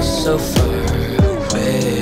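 Background music with a steady beat, deep drum hits and sustained notes.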